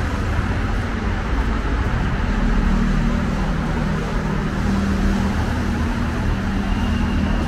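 Street traffic: motor vehicles running close by, a steady low rumble with an engine hum that sets in about two seconds in.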